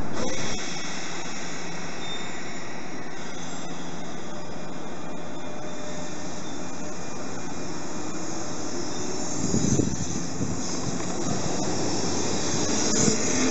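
JR 201 series electric train running in alongside the platform, a steady rumble of motors and wheels. There are a few low thumps about ten seconds in, and the noise grows louder and hissier near the end as the cars come level.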